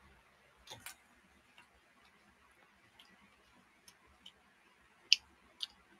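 Scattered light clicks and taps over a quiet background: a close pair just under a second in, a few faint ones after, and the sharpest one about five seconds in.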